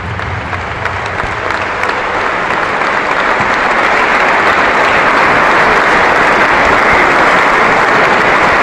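Large audience applauding, the clapping building up over the first few seconds and then holding steady.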